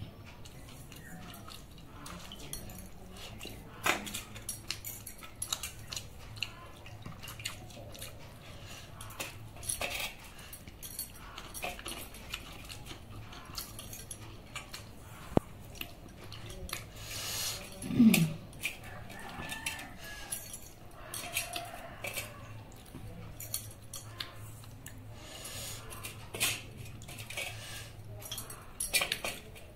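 Eating by hand from steel plates and a steel bowl: scattered light clinks and taps of steel dishware with soft eating noises over a low steady hum. About eighteen seconds in there is one louder brief sound that falls in pitch.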